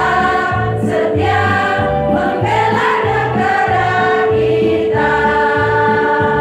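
Women's choir singing sustained notes together, over a backing with a steady low beat about twice a second.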